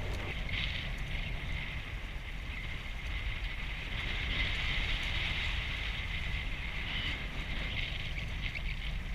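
Strong wind and rough water rushing around a Hobie 14 catamaran under sail, picked up by a GoPro's microphone as a steady noise.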